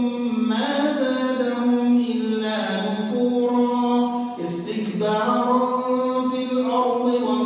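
A man's voice chanting Quran recitation, with long held notes that slide from one pitch to the next and short breaks between phrases.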